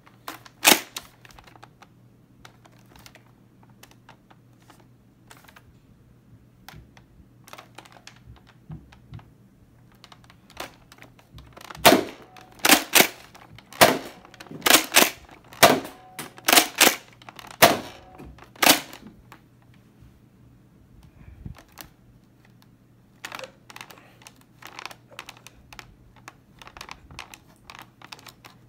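Plastic clicks and clacks of a Nerf blaster being handled and reloaded with foam ball rounds. There is a single sharp click near the start, a run of about ten loud clacks in the middle, and softer, quicker clicking near the end as a round is pushed in.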